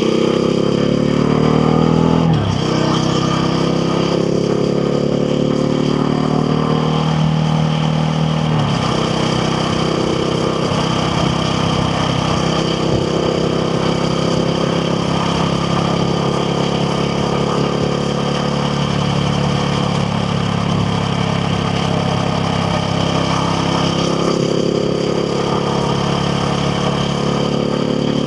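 KTM Duke 690R's single-cylinder engine accelerating with two quick upshifts, the pitch rising and then dropping sharply about two seconds in and again about eight and a half seconds in. After that it runs at fairly steady revs while cruising.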